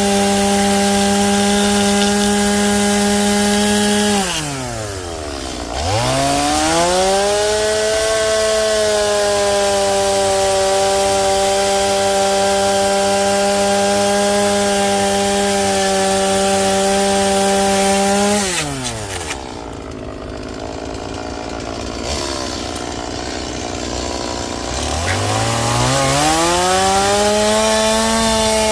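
Two-stroke chainsaw held at full throttle while carving into a Western red cedar log. It eases off twice, about four seconds in and again about eighteen seconds in, and revs back up each time.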